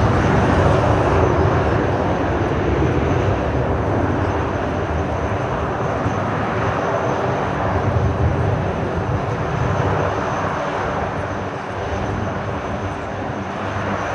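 A fixed-wing aircraft's engine noise, a loud steady roar as it flies by, easing slightly near the end.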